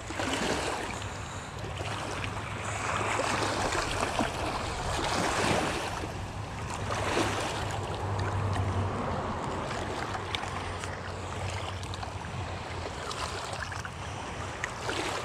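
Small lake waves lapping and washing over a rocky shoreline, swelling and easing in irregular surges, with a steady low rumble underneath.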